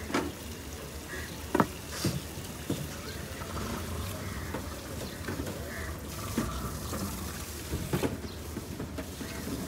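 Wet handling of a large fish on a chopping block, with a few sharp knocks and slaps as the knife and carcass meet the block, over a steady low background hum.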